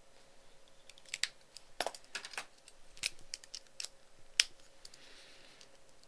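A run of sharp, irregular clicks and taps, about a dozen over three seconds, the loudest about four and a half seconds in: small hard objects being handled.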